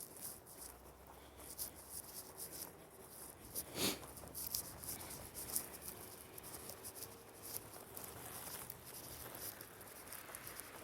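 Faint footsteps crunching in snow, irregular, with one louder knock about four seconds in.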